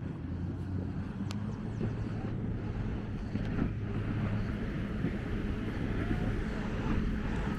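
A motor vehicle engine running with a steady low hum that grows a little louder, over street traffic noise.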